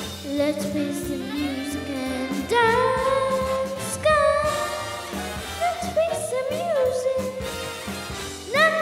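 A young boy singing solo into a microphone over instrumental accompaniment. He holds long notes, sliding up into several of them, with a wavering vibrato around the middle and end.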